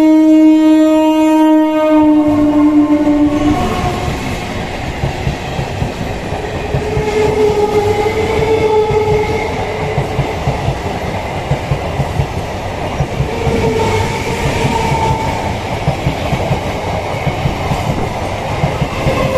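EMU local train's horn sounding one long note that cuts off about three and a half seconds in, then the electric multiple unit passing close by at speed with a steady clickety-clack of its wheels over the rail joints.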